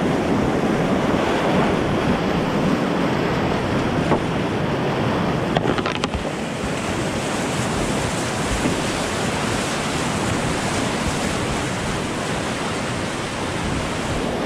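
Whitewater rapid rushing and churning around a kayak: a steady, loud wash of turbulent water, with a brief knock about six seconds in.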